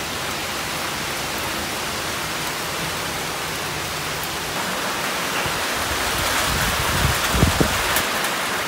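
Rain falling in strong wind: an even hiss that grows louder over the last few seconds, with a few low thumps near the end.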